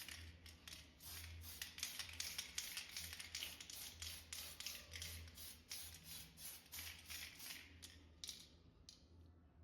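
Quick, scratchy hand strokes on a small plastic RC truck body, about four a second, dying away near the end. A faint steady low hum lies underneath.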